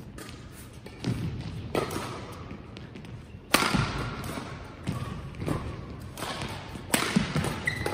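Badminton rally: rackets striking the shuttlecock in a run of sharp hits spaced half a second to a second apart, with footfalls on the court. The hardest hit comes about three and a half seconds in.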